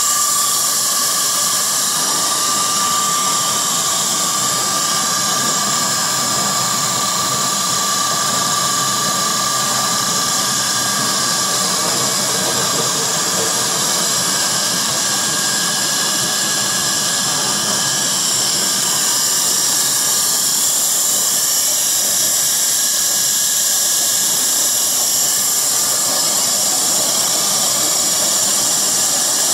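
Belt-driven single-screw fish feed pellet extruder running under load, making a steady hissing whine with a few steady tones in it.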